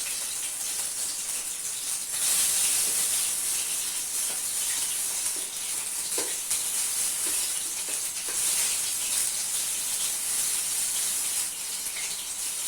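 Batter-coated prawn pakoda pieces deep-frying in hot oil: a steady sizzling hiss with faint crackles, a little louder from about two seconds in.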